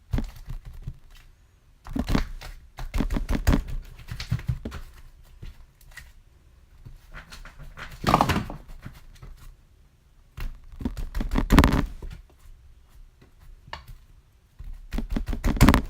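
Hands squeezing, stretching and poking slime, making squishy, crackling pops in several bursts a few seconds apart.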